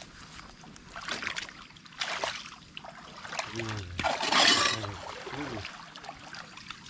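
Water splashing and trickling in several separate splashes, the loudest about four seconds in.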